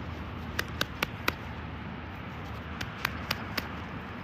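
Light, sharp clicks and taps from fingers handling a small dug-up metal belt buckle: about four in the first second and a half, and a few more around three seconds in, over a steady outdoor background hum.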